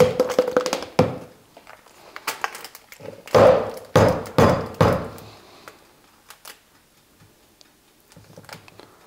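A stick blender whirs to a stop right at the start. Then come dull knocks and thunks as the blender and the plastic measuring jug are knocked and handled: one about a second in and a quick cluster a few seconds later. Fainter ticks follow.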